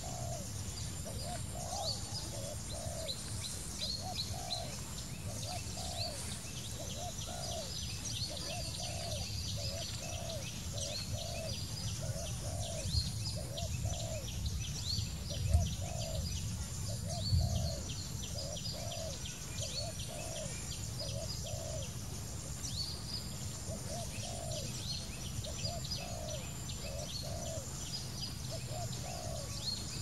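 Dove cooing: a short low note repeated about twice a second, with a short pause late on. Faint high chirps and twitters of small birds run under it, and two low bumps stand out near the middle.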